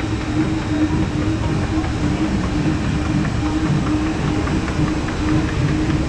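Steady low rumble of a river-rapids raft ride's water channel and machinery as the round raft floats along, with a constant hum under it.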